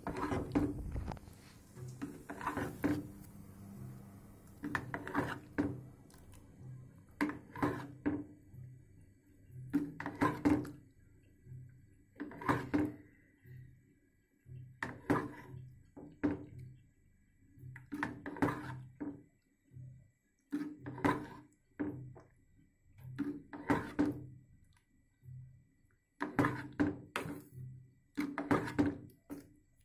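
Green plastic dipper scooping water in a metal basin and pouring it over a raw octopus, over and over about every two and a half seconds; each pass is a short knock and splash.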